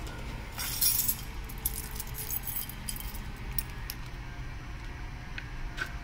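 Keys and a small lockout padlock jangling and clicking as they are handled, with light clicks of hard plastic from a ball valve lockout device. There is a burst of jangling about a second in, then scattered clicks, over a steady low hum.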